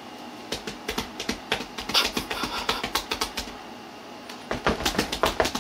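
Rapid, irregular light taps and clicks in two runs, with a short lull between them.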